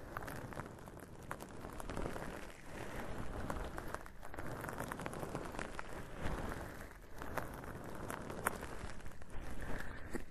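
Close-miked crackly rustling and handling noise, swelling and fading roughly once a second, with small crisp ticks throughout.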